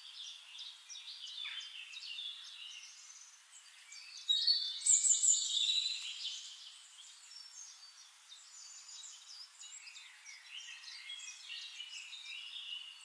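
Birds chirping and trilling in many short, high calls, loudest in a busy stretch about four to six seconds in.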